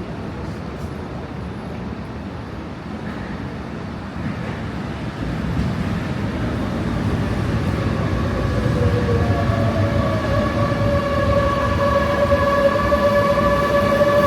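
New York City subway train rumbling on the rails, growing louder, with a steady high-pitched whine and its overtones setting in about two-thirds of the way through.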